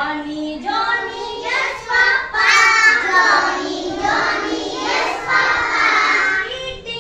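A class of young kindergarten children singing a nursery rhyme together in a string of sung phrases.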